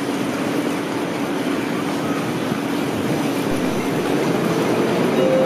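Train running through a station: a steady rumbling noise that grows slightly louder, with a faint hum, and a higher steady tone coming in near the end.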